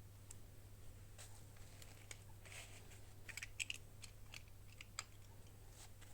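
Small scattered clicks, taps and crinkles of toy packaging and plastic doll pieces being handled, busiest in the middle, over a steady low hum.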